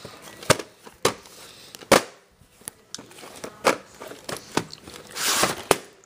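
A VHS tape box being handled on a wooden tabletop: a string of sharp clicks and knocks, then a brief scraping rustle near the end.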